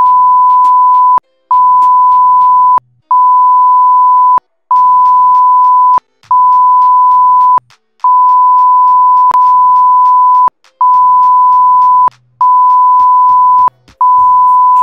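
Censor bleep: a steady high tone in about ten regular beeps of just over a second each, with short breaks between, blanking out a man's speech.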